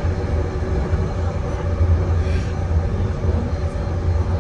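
A SkyTrain car running at speed along its guideway, heard from inside the car: a steady low rumble with a steady hum over it.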